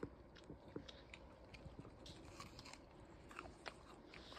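A person chewing a bite of fresh, crisp apple: faint, irregular crunches.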